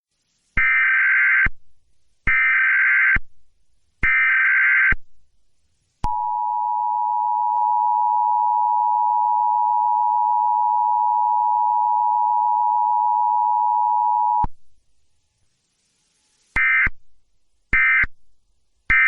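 Emergency Alert System tones: three short bursts of screeching SAME header data, then the steady two-tone attention signal held for about eight seconds, then three shorter end-of-message data bursts.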